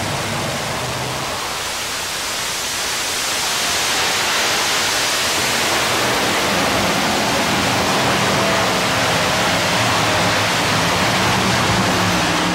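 Five-engine modified pulling tractor running flat out under load down the track, a dense steady roar that grows louder about four seconds in.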